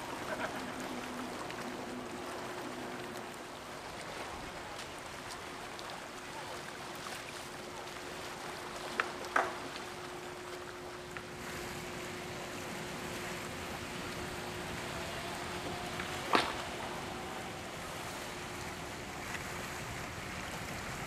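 Harbour waterside ambience: a steady wash of wind and water with a faint steady hum running underneath, broken twice by a short sharp knock.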